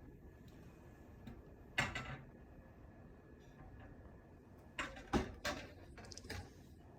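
Airsoft rifles being handled and set down: a sharp knock a little under two seconds in, then a few more clacks around five seconds, over faint room noise.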